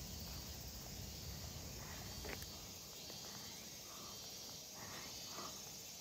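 Quiet outdoor ambience: a steady high insect hum, with one sharp click about two seconds in.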